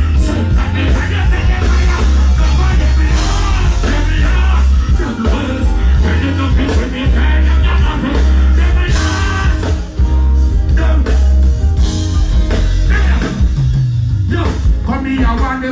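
Live band music with a singer performing on stage, recorded from the crowd, over a steady heavy bass.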